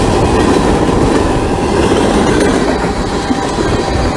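Freight train of mixed railcars rolling past close by: a loud, steady rumble of steel wheels on the rails.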